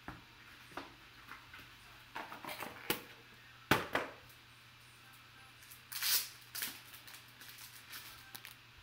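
Handling of a small cardboard trading-card box and plastic-sleeved cards: scattered clicks, taps and rustles. The sharpest click comes a little under four seconds in, and a longer rustle comes about six seconds in.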